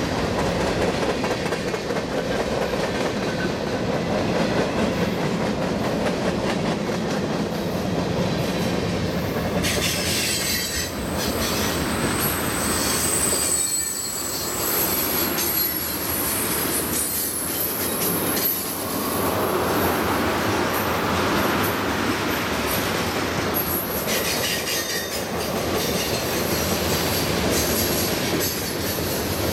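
Freight cars of a long mixed freight train rolling past on a curve, with a steady rumble and clatter of wheels on rail. High-pitched wheel squeal comes and goes from about a third of the way in, the steel wheel flanges grinding against the rail on the curve.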